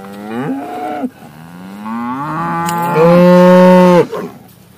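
Red Angus cattle mooing: one call that ends about a second in, then a longer call that rises in pitch, swells to its loudest and stops sharply about four seconds in.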